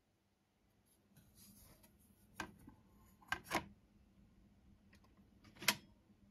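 Faint handling noises at a Thorens record turntable: a soft rustle, then a sharp click, a close pair of knocks, and a last, loudest click near the end as the tonearm is taken up over the spinning 78 rpm record.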